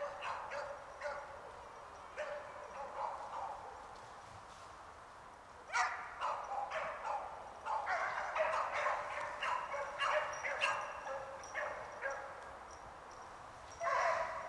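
Hunting dogs barking in rapid, overlapping volleys as they bay a hog. The barking eases for a few seconds, then picks up hard and fast about six seconds in.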